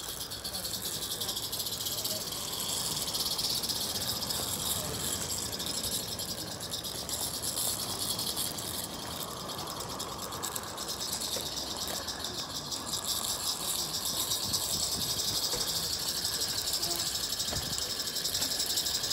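Live-steam garden-scale Double Fairlie locomotive running with a rake of slate wagons: a steady rapid hissing rattle of exhaust beats and wheels on the track.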